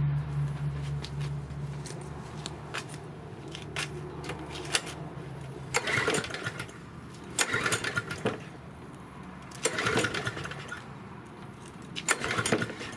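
Small lawn mower engine of a Yard Machine 6 HP 21-inch mower, running with a steady low hum that dies away over the first few seconds, then four short noises from the engine about two seconds apart.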